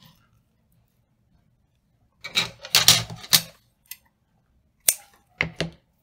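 Stiff crinoline mesh crackling and rustling as it is handled for about a second and a half, then a few sharp clicks of small scissors snipping the sewing thread near the end.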